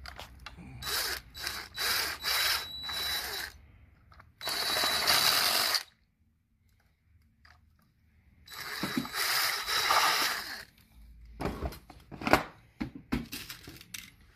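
Power drill with a step bit boring a hole through a plastic radio mounting bracket: a few short spurts, then two longer steady runs with a high motor whine, separated by a brief pause. A few sharp clicks follow near the end.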